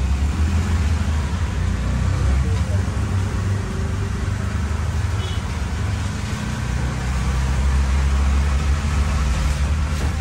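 An auto-rickshaw's small engine running with a steady low rumble, under an even hiss of heavy rain and wet road noise, heard from on board.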